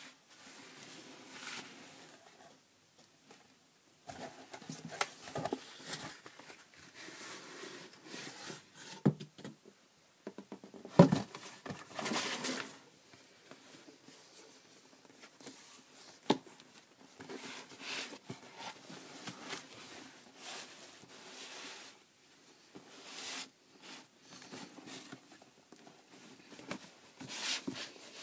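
Cardboard shipping box and its packaging being handled and unpacked: scattered rustles, scrapes and light knocks, with a sharp knock about eleven seconds in and another a few seconds later.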